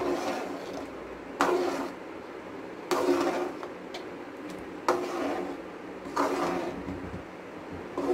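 Metal spatula stirring gram flour into thick sugar syrup in a metal pan: a scraping stroke against the pan with a brief ring about every second and a half, six in all.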